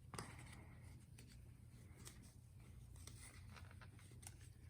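Near silence: faint scattered clicks and light rustling of lighter packaging being handled, over a low steady room hum.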